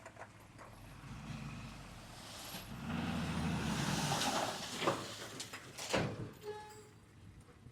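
Faint machine engine noise that swells about three seconds in and fades away, with a couple of sharp knocks near the end.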